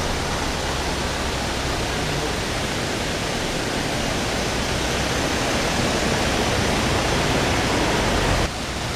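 Steady rushing noise with no distinct events, dipping briefly near the end.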